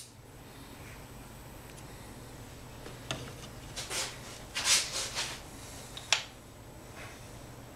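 A small lit glass lamp being slid and set into place on a wooden board: a few brief scraping rubs about three to five seconds in, then a single sharp click about six seconds in.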